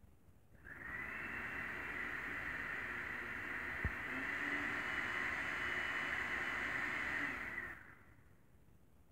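Countertop blender running: switched on about a second in, it runs steadily while blending a dark red mixture, gets a little louder about halfway through, and is switched off near the end. A single sharp click comes midway.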